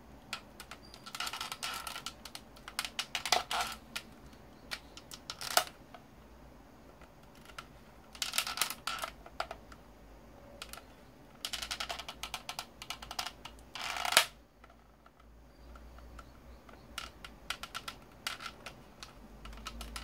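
Small hard parts and tools clicking and rattling in short, irregular bursts of quick clicks, with quiet gaps between, while a Dyson SV10 cordless vacuum is being taken apart by hand.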